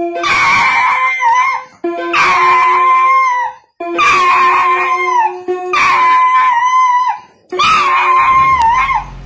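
A small poodle howling in a string of long, wavering cries of about two seconds each, over held notes from a toy electronic keyboard that it presses with its paws.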